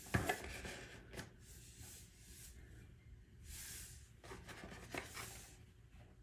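Cardboard product box set down on a tile floor with a sharp knock just after the start, then handled: scratchy rubbing and scraping of the box against hands.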